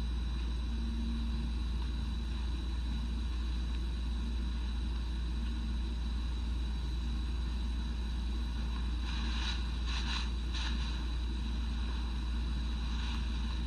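Steady low hum with a faint high whine and hiss, the noise of an old recording being played back. Three or four short scuffing sounds come about nine to eleven seconds in.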